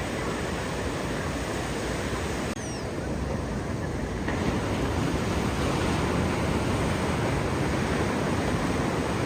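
Ocean surf rushing steadily, with a brief break about two and a half seconds in before the rush picks up again, a little louder.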